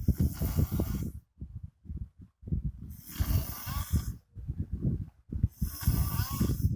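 A sleeping person snoring very loudly: deep, rattling snores in about three long breaths roughly three seconds apart, each with a rushing hiss of air.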